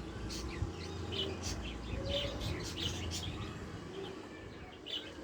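Small caged pet birds chirping, many short high chirps in quick succession.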